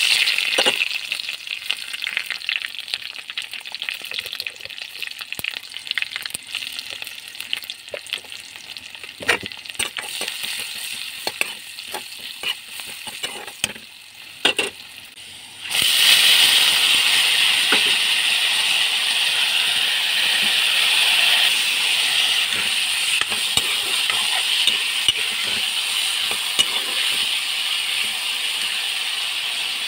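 Onion, bay leaf and elephant apple pieces sizzling in hot oil in a wok, with a metal ladle clicking and scraping as they are stirred. About halfway through, the sizzle suddenly becomes louder and steadier, with red lentils frying among the pieces.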